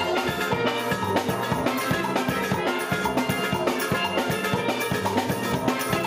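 Steel band playing: steel pans ringing out many quick pitched notes over a drum kit keeping a steady beat.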